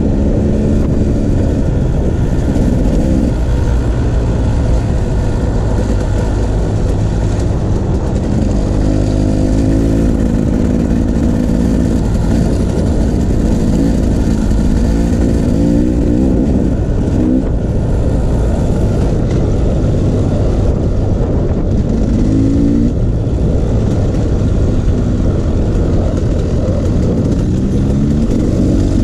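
Enduro dirt bike engine running under way on a trail, with a steady low rumble. The engine note rises and falls several times as the throttle is opened and closed.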